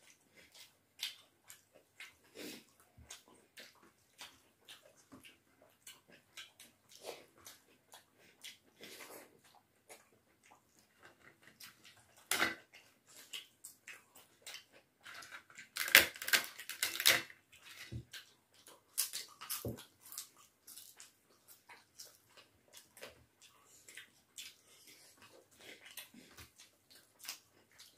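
People eating rice and dal with their hands: chewing and lip smacking, with wet squishing of rice mixed by hand on steel plates. A louder run of crisp cracks comes about halfway through.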